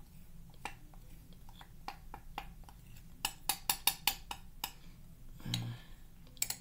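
A spoon clicking and tapping against a glass measuring cup while stirring and scooping dry cornstarch, with a quick run of about seven clicks in the middle. A short low hum near the end.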